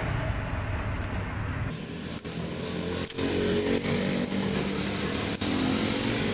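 Background street noise, then from about two seconds in a motor vehicle's engine running close by: a steady low hum with slight rises and falls in pitch.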